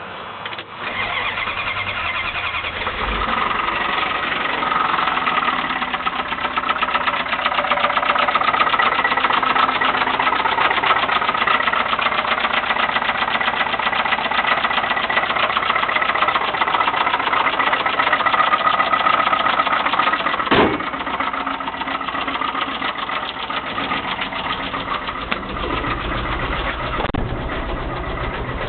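1989 Dodge truck's 318 V8 engine starting about a second in and then running with a fast, even knock; the uploader says it knocks very loud, from a lot of miles. One sharp, louder knock stands out near the end.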